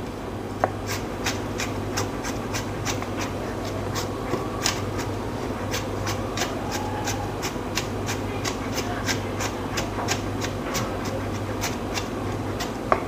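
Chef's knife chopping garlic on a plastic cutting board: an even run of light knocks, about three a second, over a low steady hum.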